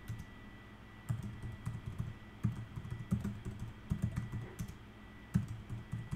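Keystrokes on a computer keyboard, typed in quick runs that start about a second in, with a brief pause near the end.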